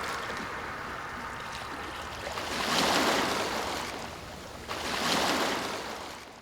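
Sea surf: waves washing in, rising in two swells about two seconds apart, then fading out near the end.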